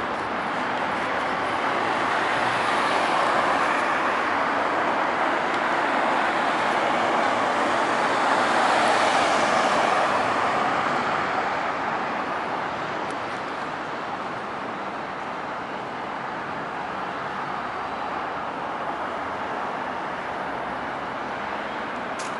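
Road traffic passing by, a steady tyre and engine rush that swells to its loudest about halfway through and then fades.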